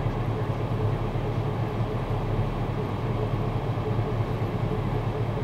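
A 2013 Chevrolet Camaro 1SS idling, heard inside the cabin as a steady low rumble.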